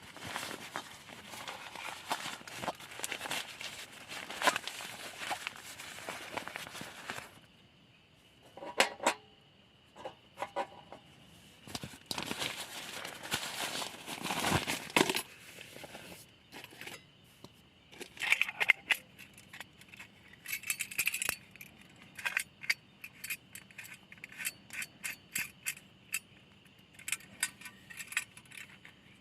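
Camp cooking gear and packaging being handled: rustling and crinkling of bags, then many light clicks and clinks of metal cookware and utensils being set out.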